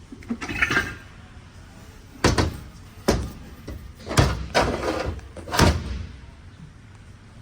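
A series of about six knocks and clunks, sudden and uneven, as heavy metal automatic-transmission parts are handled and set down on a workbench during teardown.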